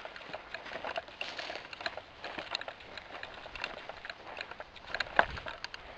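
Close rustling and handling noise with many irregular small clicks, and one sharper knock about five seconds in.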